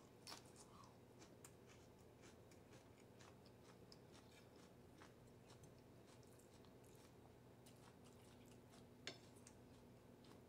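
Near silence, with faint scattered clicks and chewing as someone eats with a metal spoon from a ceramic plate; one sharper clink about nine seconds in.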